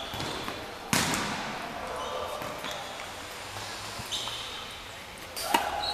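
Tennis ball impacts on a hard court: a sharp pop about a second in and another near the end, with faint high chirps between.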